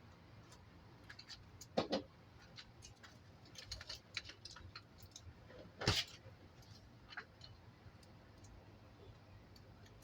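Scattered small clicks and knocks from ceiling fan parts and screws being handled and worked on, with two louder knocks, about two and six seconds in.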